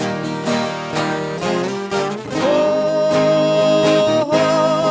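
Viola caipira and guitar playing a sertanejo moda de viola, with plucked runs and strumming. About halfway in, a long held note begins, wavering at its end, which is the duo drawing out the 'Oi' before the refrain.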